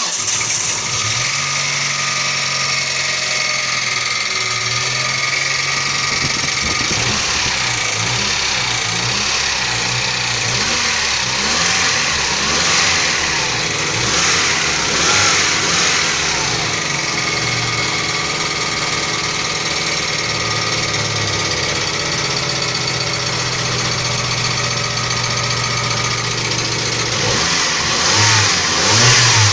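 Mitsubishi 4G63 inline-four engine running with a knock from faulty hydraulic lifters, blipped up in revs a few times, briefly near the middle and again near the end.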